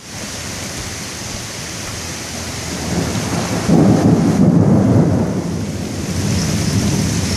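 Rain hissing steadily in a thunderstorm, with a louder low rumble that starts suddenly about four seconds in and lasts over a second.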